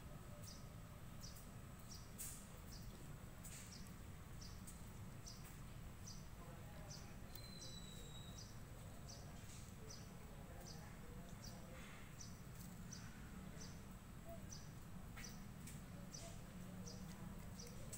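Faint outdoor ambience: a short high chirp repeated evenly, about one and a half times a second, over a low steady background noise, with a single short whistle about eight seconds in.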